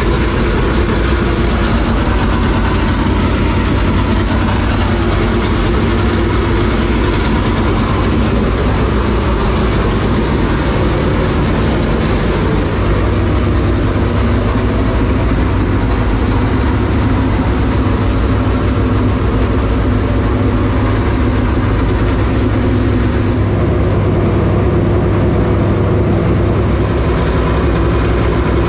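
Dirt late model's Jay Dickens-built racing V8 idling loudly and steadily, just fired up after being primed. Its tone changes a little about 24 seconds in.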